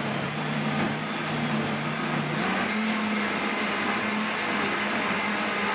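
Optimum 9200 high-speed blender running, churning a thick avocado-and-banana key lime mousse mixture with the tamper pressed into the jar. The motor's steady hum steps up in pitch about two and a half seconds in.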